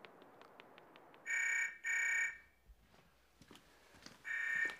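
Landline telephone ringing in a double-ring cadence: a pair of short rings about a second in and a second pair near the end.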